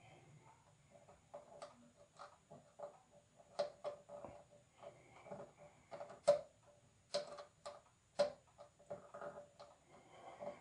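Irregular small clicks and taps of hand wiring work: wire ends and a small tool being handled at a circuit breaker's screw terminals, with a handful of sharper clicks among them.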